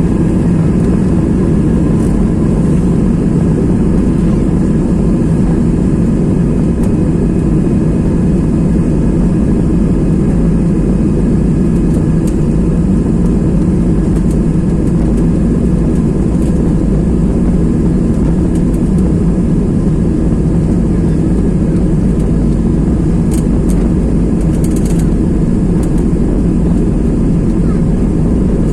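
Passenger airliner's engines running during takeoff, heard from inside the cabin as a loud, steady rumble with a few faint whining tones above it.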